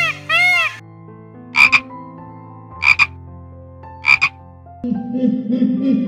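Peacock calling: a quick run of short rising-and-falling calls that stops within the first second, then three sharp double-note calls about a second and a half apart. Near the end a lower, rougher sound takes over.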